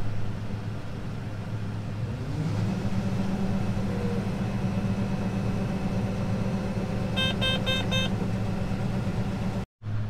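Steady drone of a John Deere combine's engine and unloading auger heard inside the cab while it unloads corn into a grain trailer. The pitch steps up about two seconds in. About seven seconds in come four short electronic beeps.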